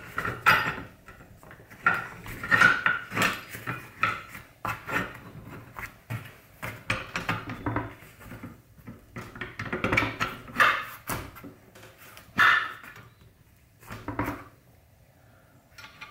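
Cast-iron and steel parts of a woodworking vise clanking and scraping as the jaw's guide rods and lead screw are slid back through the body during reassembly. The knocks and rubs are irregular, with the loudest clanks about half a second in, near three seconds, around ten seconds and near twelve and a half seconds, before a quieter stretch near the end.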